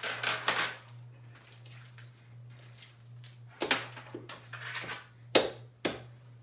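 Several sharp knocks and clatters of small containers being handled and set down on a tabletop, the loudest a little past five seconds in, with a steady low hum underneath.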